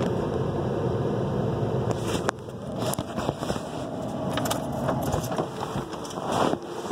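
Rubbing and knocking of a phone being handled and moved around inside a car, with irregular sharp knocks over a steady low rumble.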